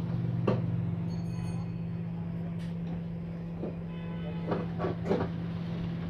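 Dawlance microwave oven running under load, a steady low mains hum from its high-voltage transformer and magnetron, with a few light clicks. It is working normally with no arcing, drawing about 5 amps.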